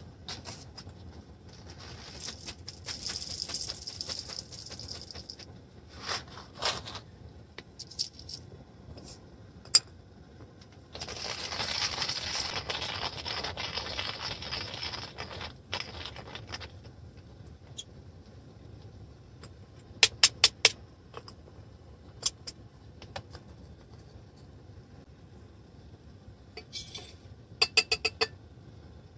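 Coffee beans and small coffee gear being handled by hand: bursts of rattling and scraping, the longest lasting several seconds in the middle. A few sharp metallic clicks come about two-thirds through, and a quick run of clicks near the end.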